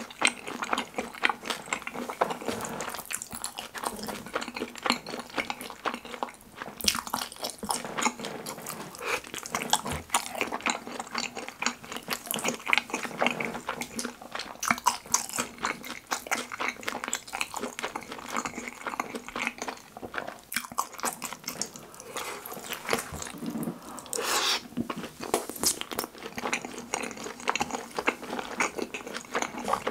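Close-miked chewing of kimchi pizza tangsuyuk, battered fried pork in sweet-and-sour sauce topped with kimchi and cheese: a dense, irregular run of mouth clicks and smacks.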